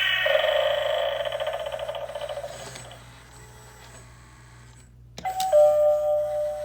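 A buzzy, fluttering electronic sound fades out over the first few seconds. After a quiet spell there is a click and an electronic doorbell chime: a higher tone, then a lower tone that is held.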